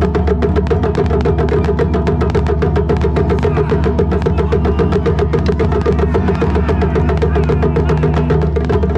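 Japanese taiko drums played in a rapid, even rhythm, with a steady low rumble beneath the strokes.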